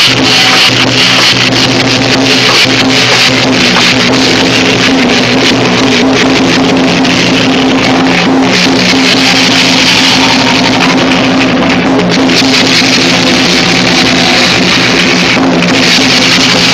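Loud, even music with guitar and drums over sustained low tones.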